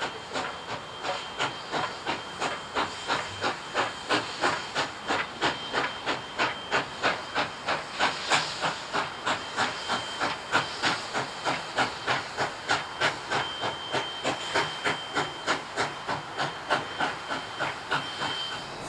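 Steam locomotives 5917 and R766 working a passenger train, their exhaust chuffing in a fast, even beat of about two and a half a second. A thin, steady high tone comes and goes over it.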